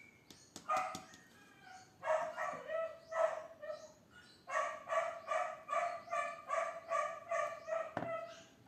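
A dog barking in short, evenly spaced barks: a few scattered at first, then a steady run of about two to three barks a second from about halfway in.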